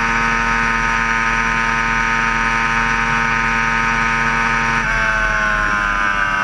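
Sport bike engine running hard at high speed in sixth gear, a steady high engine note. About five seconds in the throttle is rolled off and the engine note falls steadily as the bike slows.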